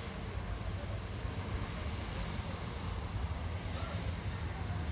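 Steady low outdoor rumble with no distinct bangs or cracks.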